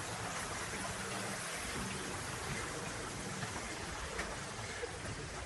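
Steady hiss of rain falling on wet paving, even and unbroken.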